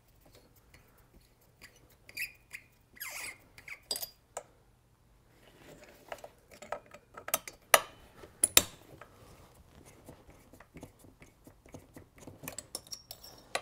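Hex key clicking and scraping in the Allen screws of a two-stroke engine's cylinder as they are loosened by hand: scattered light metallic clicks and ticks, the sharpest a few seconds past the middle.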